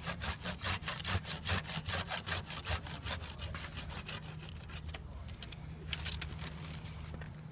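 Pruning saw cutting through a cherry tree branch in quick back-and-forth strokes, about three or four a second, easing to a few scattered strokes about five seconds in.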